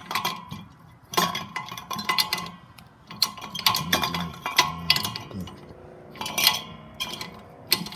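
Metal housing of an old GE ceiling vent fan clanking and rattling as it is handled and turned over: a string of sharp metallic knocks and clinks, each with a short ring.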